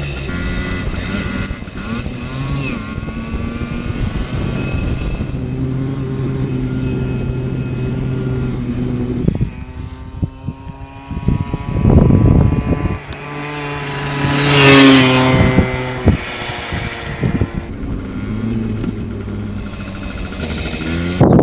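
Simson S51 moped's single-cylinder two-stroke engine running steadily, then revved: a short blip about twelve seconds in and a longer rise to a high, loud peak about fifteen seconds in, before settling back.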